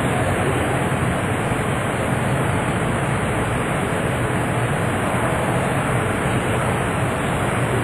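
Steady rushing background noise with a low hum underneath and no distinct events.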